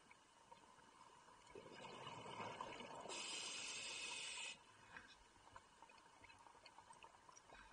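Scuba diver breathing through a regulator underwater: a bubbling exhalation, then a sharp hiss of air from about three seconds in that cuts off suddenly a second and a half later, followed by faint clicks.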